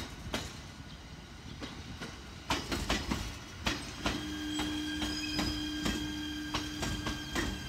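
JR East E129 series two-car electric train rolling slowly past, its wheels clicking and knocking over rail joints. About four seconds in, a steady whine joins the clicks and holds until near the end.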